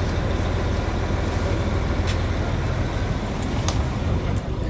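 Heavy diesel engine of a wheel loader running steadily close by, with a few short clicks over it.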